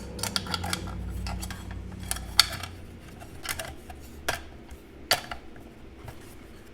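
Irregular metallic clicks and clinks as a new blade is fitted onto a Porter-Cable portable bandsaw by hand. The loudest clink comes about two and a half seconds in, and a low rumble runs through the first half.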